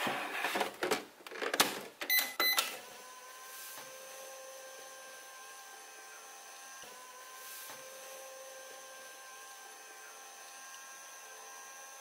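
Just Like Home toy microwave: plastic clicks and knocks as its door is shut, two short electronic beeps about two seconds in, then its steady electronic running hum.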